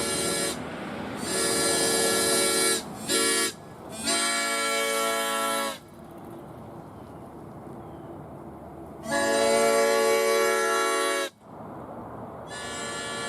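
Homemade plastic drinking-straw replica of a seven-chime Nathan P7X train horn sounding its A-sixth chord in loud blasts with sharp starts and stops. A blast ends just after the start, then come long, long, short and long blasts, the pattern of a grade-crossing signal. After a pause a long blast follows, and another begins near the end.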